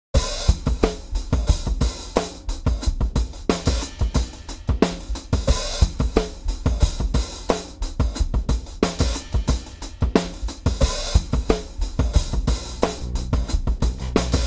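Drum kit playing a busy, driving beat with hi-hat, snare and bass drum; sustained low notes come in near the end.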